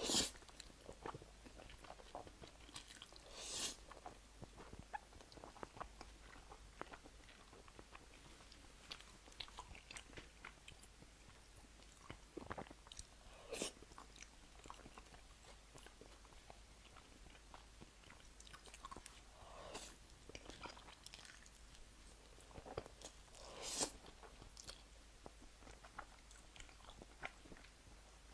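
A person biting and chewing crunchy food close to the microphone, with soft chewing clicks and occasional louder crunches.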